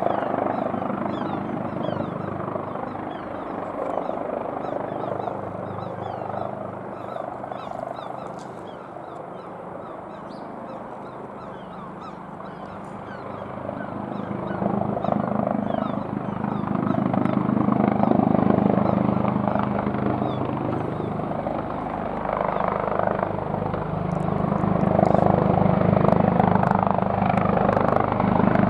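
AgustaWestland AW139 twin-turboshaft helicopter hovering low, its rotor and engine noise steady throughout. The sound fades for a few seconds in the first half, then swells louder twice in the second half as the helicopter comes nearer.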